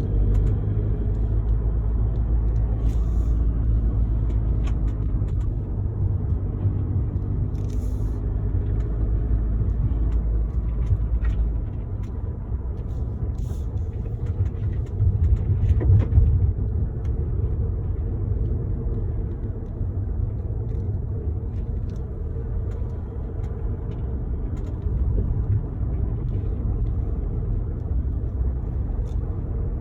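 Car driving on the road: a steady, muffled low rumble of road and engine noise. Engine tones waver in pitch during the first ten seconds or so, and the deepest rumble eases slightly about twelve seconds in.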